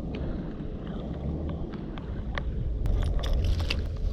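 A steady low rumble with scattered sharp clicks from about two seconds in, like stones and shards on the foreshore knocking together as they are handled.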